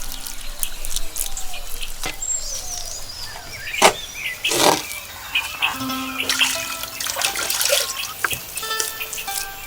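Birds chirping, with two sharp splash-like knocks close together in the middle, over background music that comes and goes.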